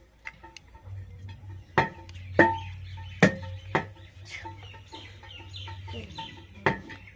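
Several sharp clacks as a small toy gas stove and its toy gas cylinder are handled and set down. A steady low hum comes in about a second in.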